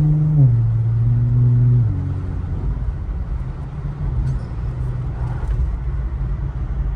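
Infiniti Q50 3.0t's twin-turbo V6 heard from inside the cabin, loudest at first, its note stepping down in pitch twice, about half a second and two seconds in, as the automatic shifts up while the car speeds up. It then settles into a steady low drone with road noise.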